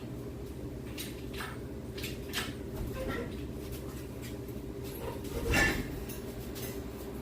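Scattered metallic clinks and knocks of tools and parts being handled during work on the engine hoist, with a louder clank about five and a half seconds in, over a steady low hum.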